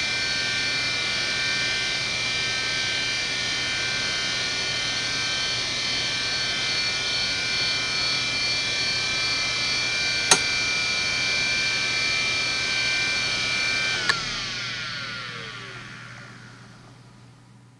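Conner Peripherals CFS850A 3.5-inch 3600 rpm hard drive idling with a loud, steady whine of several high tones. A sharp click comes about ten seconds in and another about fourteen seconds in. After the second click the whine falls in pitch and fades away as the platters spin down.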